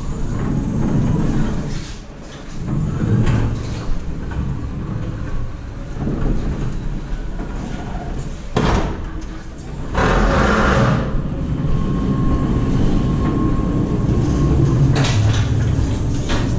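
Electric pallet stacker (BT Staxio) driving over a trailer's metal chequer-plate floor with a stack of empty plastic pallets on its forks: rumbling and rattling, with occasional clunks, a louder surge of noise about ten seconds in, and a faint steady whine shortly after.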